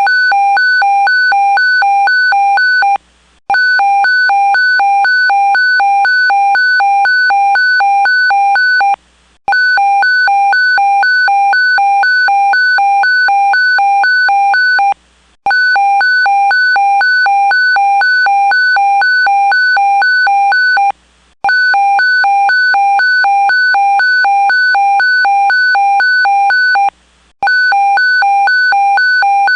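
Electronic evacuation alarm giving an earthquake alert: a loud, rapidly pulsing beep tone. Each burst runs about five and a half seconds, then breaks for half a second, and the cycle repeats every six seconds.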